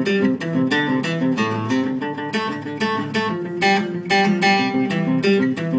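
Acoustic guitar strummed in a steady rhythm, playing chords in an instrumental passage with no singing.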